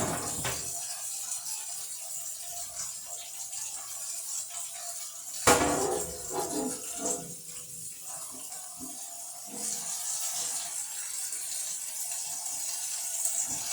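Hot water running from a tap over a glass refrigerator shelf as it is rinsed, with a single sharp knock about five and a half seconds in.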